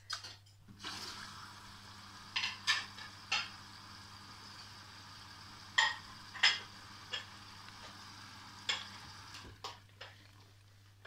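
Hotpoint washer-dryer starting its wash cycle: a steady hiss of water filling through the inlet valve, over a low hum, with sharp clicks scattered through it. The hiss stops about nine seconds in.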